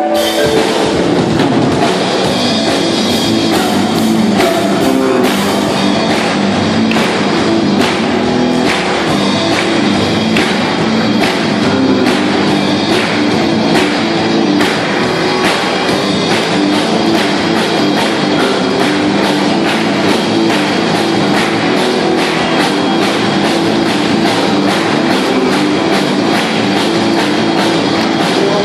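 A rock band playing an instrumental passage: drum kit keeping a steady beat under guitar chords, with no singing yet.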